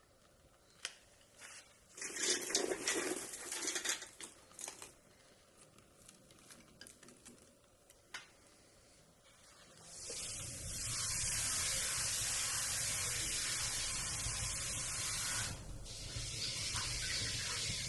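Kindling being handled with clicks and rustling, then from about ten seconds in a steady rushing hiss with a low rumble, briefly dipping near the end, as the woodstove fire is being lit.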